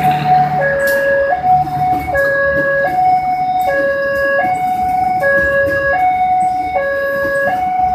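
Railway level-crossing warning bell sounding its electronic two-tone signal, switching between a lower and a higher pitch about every 0.7 seconds, over the rumble and clicks of a passenger train's carriages rolling past on the rails.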